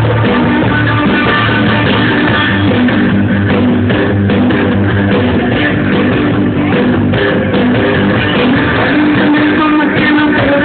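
Live rock band playing loud and steady through the stage PA: electric guitars over bass and drum kit.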